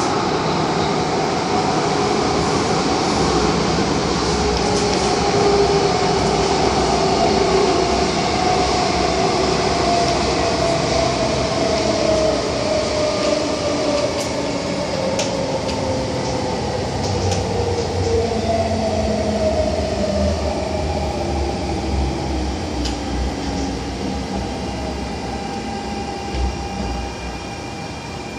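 Inside a running MTR A-Train electric multiple unit: a steady rumble of wheels and running noise, with a motor whine sliding slowly down in pitch as the train slows. The sound gets gradually quieter over the last few seconds.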